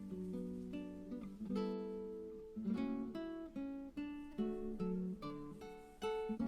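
Background music: acoustic guitar being played, plucked and strummed notes.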